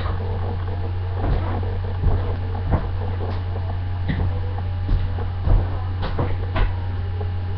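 Kitchen handling sounds: several short knocks and clatters of items being moved on a counter, over a steady low hum.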